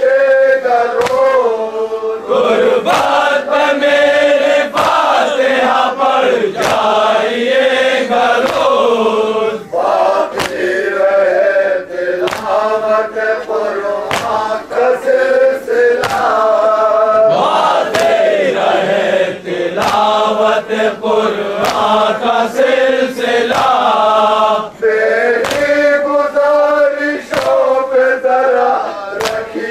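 A group of men chanting a nauha, a Shia lament, in unison, with regular sharp slaps of hands striking chests (matam) keeping the beat.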